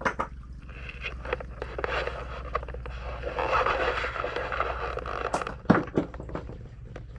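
Splashing and scraping as someone moves through shallow stream water in a stone culvert, with a few sharp knocks about two-thirds of the way in, over a steady low rush of the stream.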